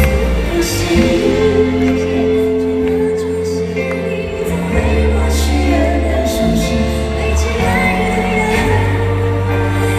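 Live band playing a slow pop ballad, with drums and cymbals, bass, keyboards and strings, and a singer's voice over it.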